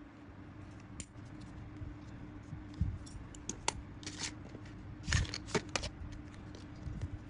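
Scissors snipping small bits off a paper template, a few short crisp snips, followed by paper and a thin foil sheet rustling as they are handled, the busiest rustling a little past the middle.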